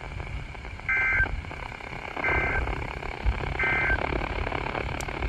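Emergency Alert System end-of-message data bursts: three short, identical two-tone digital squawks about a second and a half apart, sent over the broadcast to close the weather warning.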